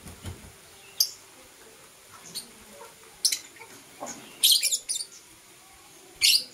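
Lovebirds giving short, shrill chirps, one at a time every second or so, with a quick run of several about four and a half seconds in.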